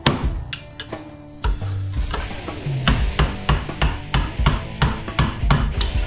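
Hammer blows on the cast metal housing of a dental vacuum motor, knocking it loose: a quick run of sharp strikes, about three a second.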